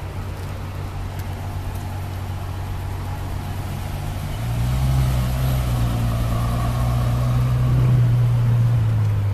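Ferrari F12berlinetta's V12 engine idling with a deep, steady note, turning louder about four and a half seconds in as the car pulls away at low revs.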